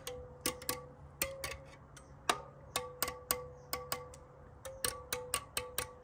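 Motorcycle wheel spokes being tapped one after another with a metal tool, about three taps a second. Most give a short ringing ping, the 'bing' that marks a tightened spoke, in contrast to the dull thud of a loose one.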